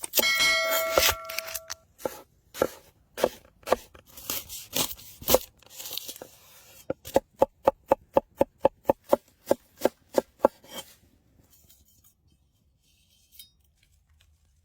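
Knife chopping food on a cutting board. It opens with a brief ringing clatter, then comes in irregular cuts, then a fast even run of about four chops a second that stops about 11 seconds in.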